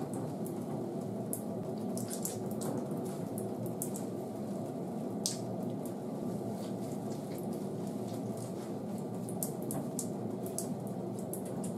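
Water dripping and splashing into a plastic tub as a wet Shih Tzu's long coat is squeezed out by hand: many short, scattered drips over a steady low background noise.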